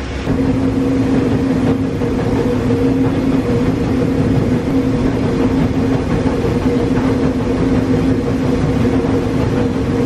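Sukup grain dryer running, its fans making a steady, loud hum with a constant pitch over a rush of air.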